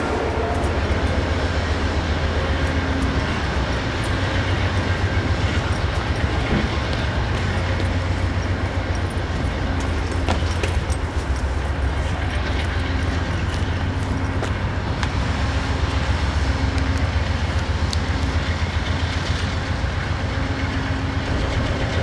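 Amtrak Sunset Limited passenger train running along the rails: a steady low rumble with scattered clicks from the wheels and track.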